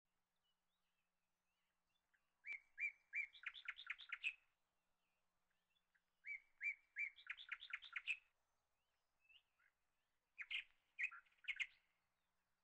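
A songbird singing three short phrases, each a few separate chirps speeding up into a quick trill.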